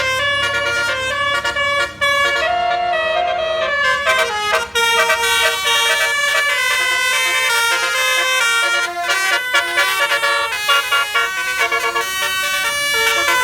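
Indonesian bus 'basuri' telolet horn, a set of tuned air horns, playing a melody: loud notes that change every fraction of a second, several pitches at once, over a low bus engine rumble that fades after the first few seconds.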